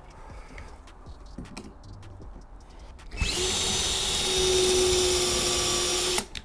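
Cordless drill boring a pocket hole through a Kreg jig into a board, running at a steady speed for about three seconds and then stopping. Light clicks and handling of the jig and board come before it.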